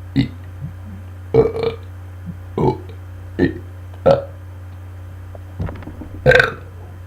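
A man burping on command: a string of about eight short burps, roughly one a second, the loudest near the end.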